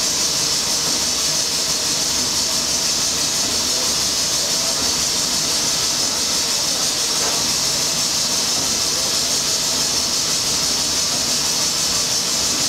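Steady, high-pitched hiss of steam in a steamship's engine room, around its triple-expansion steam engine, with no break or change.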